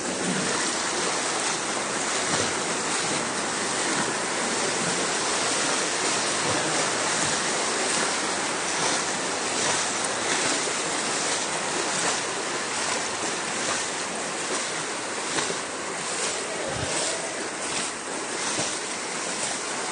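Steady rushing noise of heavy rain and floodwater.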